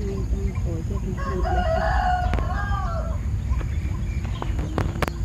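A rooster crowing once, a single call of about two seconds that rises and then falls. A few sharp clicks come near the end.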